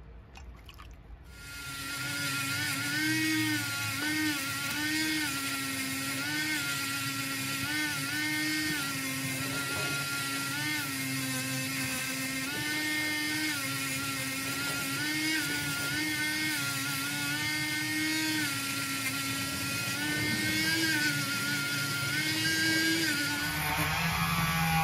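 Small cordless rotary tool spinning a brass wire brush wheel against a diecast toy's metal baseplate, starting about a second in. It makes a steady high whine whose pitch dips and recovers over and over as the brush is pressed into the part.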